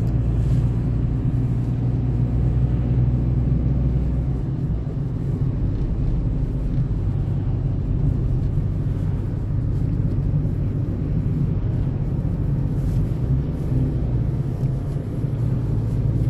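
Steady engine and tyre noise heard from inside a moving car's cabin: a low, even rumble. The deepest part of the rumble drops away about four seconds in.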